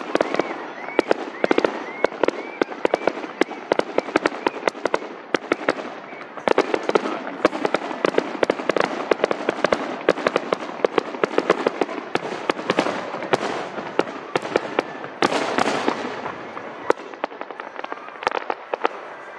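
Aerial fireworks going off in a dense crackling barrage: many rapid pops and cracks, one on top of the next, with a louder, fuller spell about fifteen seconds in.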